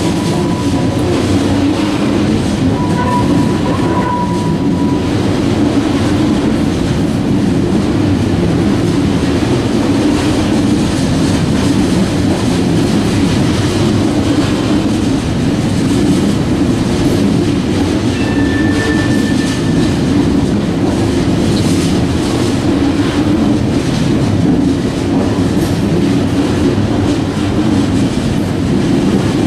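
Tank cars of a freight oil train rolling steadily past: a continuous rumble of steel wheels on rail with clickety-clack over the rail joints. Two brief high wheel squeals stand out, one a few seconds in and one around the middle.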